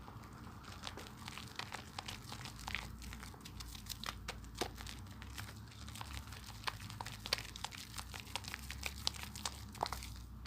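Hands lathering a bar of soap: a dense, irregular crackle of small clicks and squishes as the foam is worked.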